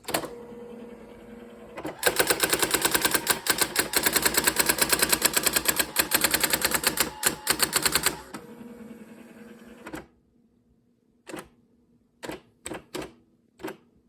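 Brother SX-4000 electronic typewriter printing a line in a rapid, even run of strikes lasting about six seconds, with a steady motor hum before and after it. A few separate clicks follow near the end.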